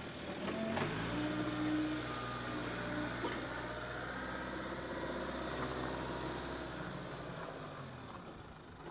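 An engine running steadily at an even pitch. It comes up about a second in and fades away near the end.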